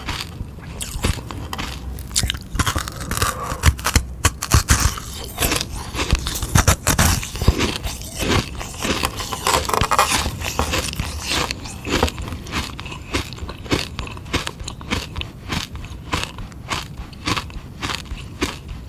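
Biting and chewing a frozen sugar-water ice pop: a run of sharp, crackling crunches as the ice breaks between the teeth.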